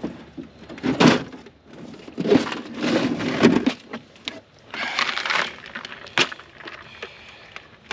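Knocking and clattering as a plastic tackle box is pulled up from the floor of a small boat and handled on the lap, in several short bursts with a sharp snap about two-thirds of the way through.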